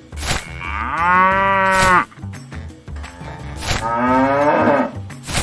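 Two long cow moos, about a second each, the second rising then falling in pitch, with short sharp sounds between them.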